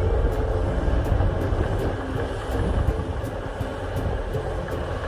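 Heavy construction machine's diesel engine running with a steady low rumble.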